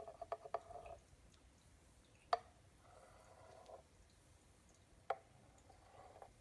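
Steamed milk pouring from a stainless steel milk pitcher into a cup of espresso, faint liquid gurgling in short spells, with two sharp clicks.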